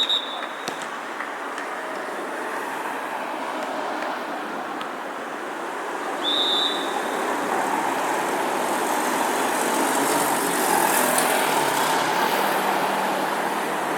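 Two short, high whistle blasts, one at the start and one about six seconds in, over a steady din of traffic noise that grows slightly louder in the second half.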